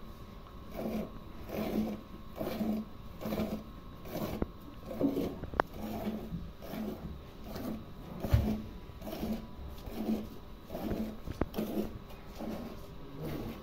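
Milk squirting in rhythmic streams into a steel pail already part full of milk as a cow is milked by hand, a frothy hiss a little more than once a second. A single low thump a little past halfway.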